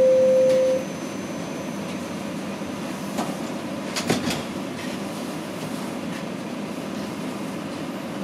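Inside a Toronto subway car (TTC Toronto Rocket train): the last steady note of the door-closing chime ends about a second in, then the car's steady hum and rumble carries on, with two short knocks about three and four seconds in.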